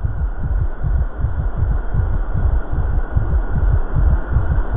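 Wind buffeting the microphone: a loud, irregular low rumble that keeps pulsing unevenly several times a second.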